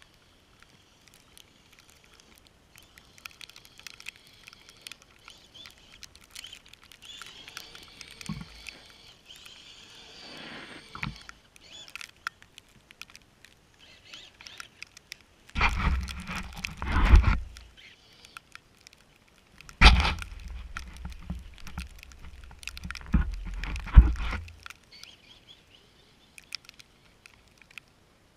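Traxxas Summit RC truck's electric motor and gears whining faintly while it runs through snow, amid scattered light ticks. In the second half come two loud rushes of noise, the first about two seconds long and the second about five.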